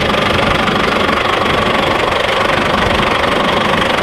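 GAZ-3308 truck engine idling steadily, with a hiss of air escaping from a torn hose: the leak behind the truck's loss of brake air.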